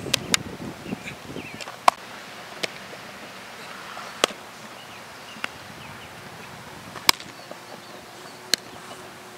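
Sharp, isolated pops of baseballs smacking into leather gloves during infield throwing and fielding, about eight in all at irregular intervals, over a faint steady outdoor hush.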